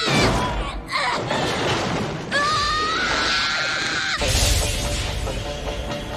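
A man's agonised scream, held long in the middle, then a heavy crashing impact about four seconds in, over dramatic background music: an anime fight's sound track as a cyborg is struck down.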